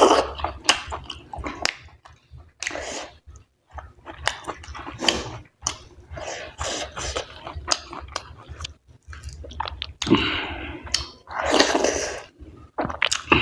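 Close-miked chewing and wet, squishy mouth sounds of a person eating soft wheat dhido with chicken curry, in irregular bites with short pauses between them.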